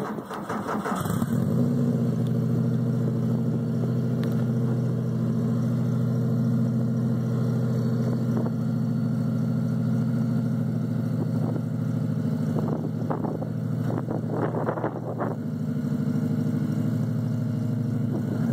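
Turbocharged 2.0-litre Subaru flat-four engine in a VW Beetle starting about a second in, then idling steadily.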